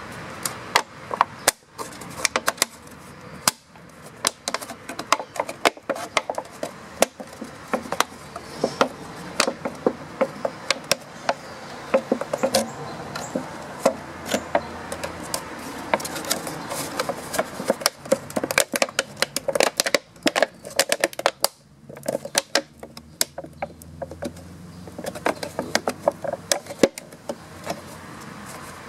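Thin clear plastic of a cut-open 2-litre soda bottle crackling and crinkling in quick, irregular sharp clicks as hands squeeze, flex and fit the pieces together, over a steady machine hum.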